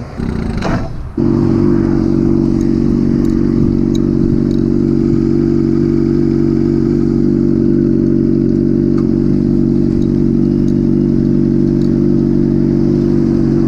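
Honda CBR600RR inline-four motorcycle engine coming on suddenly about a second in, then idling steadily at an even pitch.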